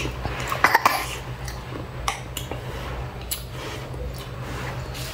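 Chopsticks and a ceramic spoon clinking against a ceramic noodle bowl: a quick cluster of sharp clicks about a second in, then a few lighter taps.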